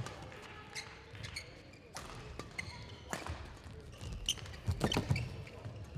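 Badminton rally: a shuttlecock struck back and forth by rackets in sharp, short cracks, with players' shoes squeaking and stepping on the court floor. The hits start about two seconds in and come fastest near the end.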